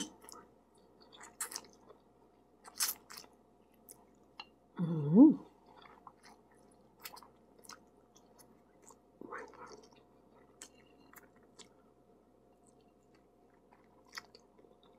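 A person eating noodles with chopsticks: close-up wet mouth sounds of slurping and chewing, scattered short smacks and clicks. About five seconds in there is a brief voiced hum through the full mouth, and a quieter one near nine seconds.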